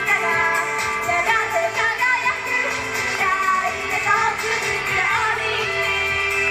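Japanese idol pop song performed live: young female voices singing over a pop backing track, ending on a held note.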